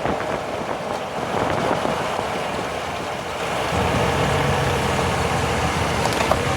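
Drivetrain noise from under a 2005 Jeep Grand Cherokee on the move, heard near the differential and driveshaft: a dense low rumble. A bit under four seconds in it grows louder and settles into a steady low hum. The owner takes this for a differential noise that shows up when accelerating uphill.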